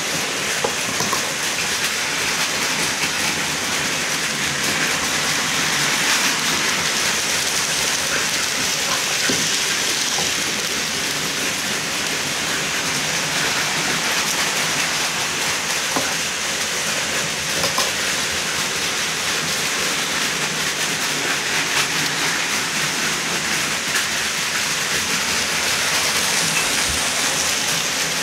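Model trains running on the layout's track: a steady hiss of wheels and motors, with a few light clicks.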